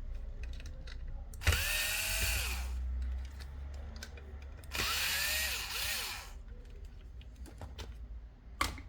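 Small electric motor of the nail drill run in two short bursts a few seconds apart. Each time it spins up with a rising whine and hiss, then winds down.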